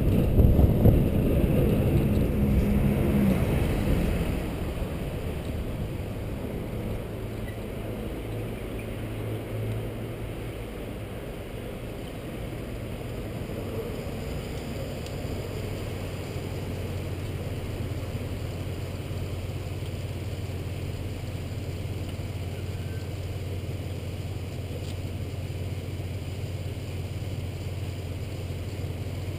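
Wind and road rumble on a helmet camera while the bicycle is moving. After about four seconds it drops to a quieter, steady low hum of street traffic and an idling car while the bike stands at a red light.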